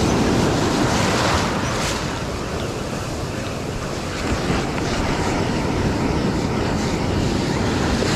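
Ocean surf breaking and washing over the shallows, with wind rumbling on the microphone. It is loudest in the first two seconds, eases a little in the middle, then builds again.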